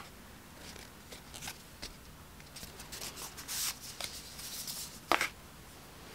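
Paper card and envelope being handled, with scattered rustles and slides of paper. Pieces are set down on a cutting mat, and a sharp tap about five seconds in is the loudest sound.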